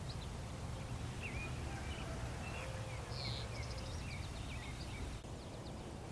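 Songbirds chirping and trilling in a quick series of short notes, over a steady low background rumble.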